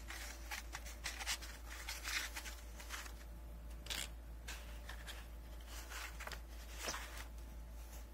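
Paper pages of a hardback book rustling as it is leafed through and closed, then scuffs of the book and card as it is slid into its cardboard presentation box, the sharpest brushes about four and seven seconds in. A steady low hum lies underneath.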